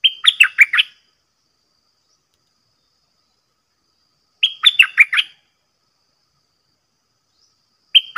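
A bulbul singing a short bubbly phrase of five or six quick notes, each falling in pitch, repeated about every four seconds.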